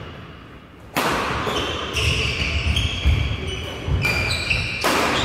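Badminton rally on a wooden indoor court: rackets strike the shuttlecock with sharp cracks about a second in and again near the end. Between the hits, footfalls thud on the floor and court shoes squeak.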